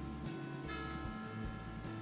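Background music: a slow melody of sustained, ringing notes, a new note or chord about every half second.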